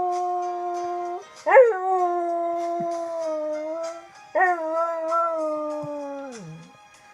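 Cocker spaniel howling in long held notes. The first howl breaks off about a second in. The second starts with a sharp upward swoop and then holds steady. The third slides down in pitch and fades near the end.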